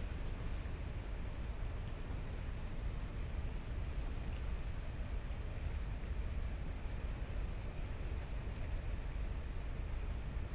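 Crickets chirping: short groups of four or five quick high pulses, repeating about once a second, over a steady high-pitched insect trill and a constant rushing background noise.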